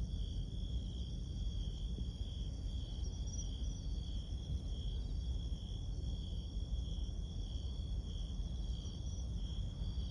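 Crickets singing in a steady pulsing trill, over a low steady rumble.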